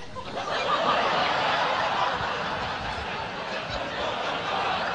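Audience laughing. The laughter swells in just after the start and then holds steady.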